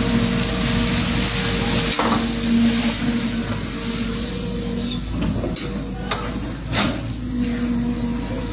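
An engine running with a steady hum, and a few sharp knocks over it.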